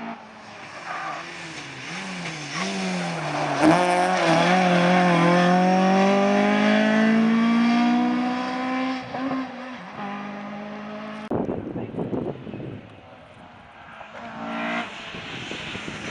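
Rally cars running hard on a tarmac stage. The engine note rises and falls quickly through gear changes, then climbs steadily under full throttle for about five seconds as a car comes through, and drops away. After an abrupt change about eleven seconds in, another rally car's engine is heard approaching near the end.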